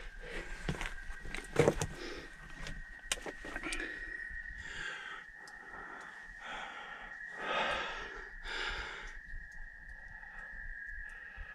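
A person breathing heavily in and out, about once a second through the middle stretch, with sharp knocks and scrapes of feet or hands on rock in the first two seconds. A steady, thin high-pitched whine sits under it all.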